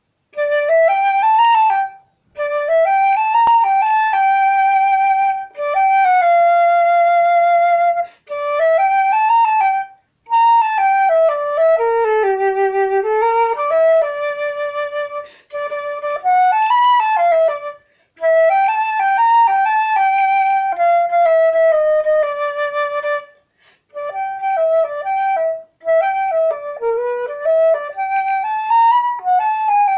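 Solo flute playing a blues melody with no accompaniment, in short phrases with brief pauses between them.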